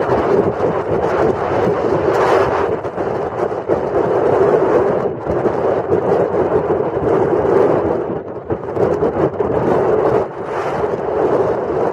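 Off-road vehicle driving, its engine and tyres mixed with wind buffeting the microphone in a loud, fluctuating rumble.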